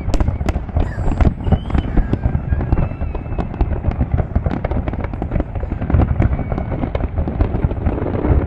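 Fireworks display in full barrage: a dense, continuous run of bangs and crackles with no let-up.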